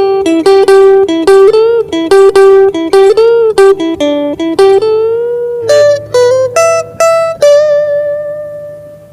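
Guitar playing a fast single-note lead melody with string bends, ending on a held note that fades away near the end.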